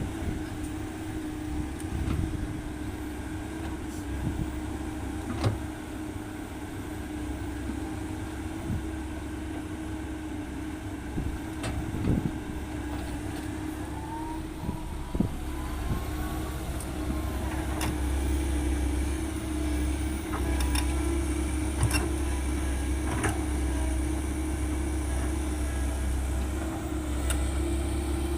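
Komatsu PC130-8 hydraulic excavator's diesel engine running steadily under working load, with a hydraulic whine that slides in pitch about halfway through and scattered sharp knocks of the bucket and rock. The engine grows louder for the last third.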